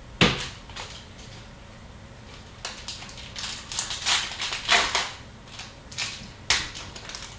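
Hockey trading cards being handled and flipped through: a series of short, crisp rustles and clicks, one sharp near the start, a busy run in the middle and another sharp one near the end.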